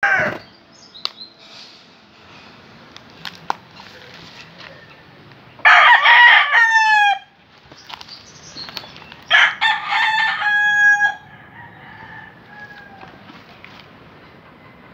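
Rooster crowing twice, about six and about nine and a half seconds in. Each crow lasts a second and a half to two seconds; the first ends in a falling slide.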